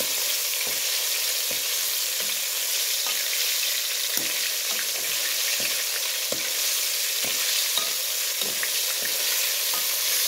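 Flour-coated fish pieces deep-frying in hot ghee in a wok, a steady sizzle. A wire-mesh spider strainer stirs them and taps and scrapes against the pan about once a second.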